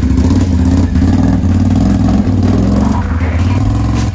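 Can-Am Outlander 570 ATV's V-twin engine running at low revs as the quad crawls off through grass, heard close to its exhaust with a steady low note.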